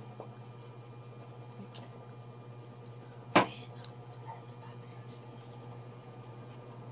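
Quiet eating of crispy fried chicken: faint small mouth clicks over a steady low hum, with one short sharp snap about three and a half seconds in.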